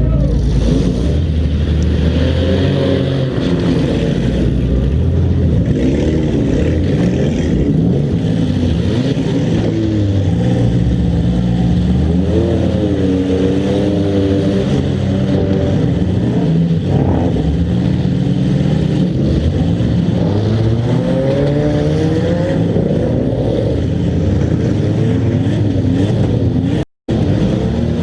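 Demolition derby cars' engines running and revving, several at once, their pitch rising and falling. The sound cuts out for a moment near the end.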